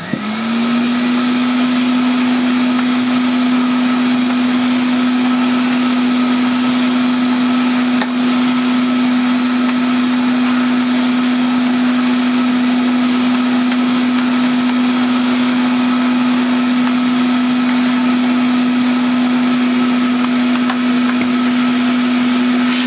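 Vintage Hoover 417G cylinder vacuum cleaner switched on, its motor spinning up within half a second to a steady low-pitched hum with a rush of air, then running evenly. The hum sounds slow for a vacuum, and suction is weak, which the owner puts down to a dirty filter and cloth dust bag.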